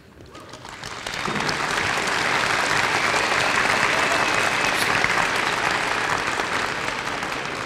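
Audience applauding: the clapping builds about a second in, holds steady, and tapers off near the end.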